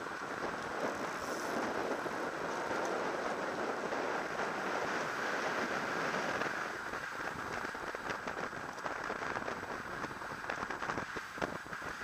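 Wind rushing over an action camera's microphone, with tyre and road noise from a road bike riding in a racing bunch. About seven seconds in the rush eases and a scatter of small clicks and rattles comes through.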